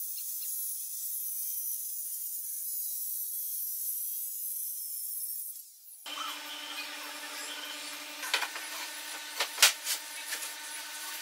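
Handheld circular saw cutting through a pine board, a steady high hiss of the blade in the wood that stops about six seconds in. Then a steady hum with a few sharp wooden knocks as boards are handled.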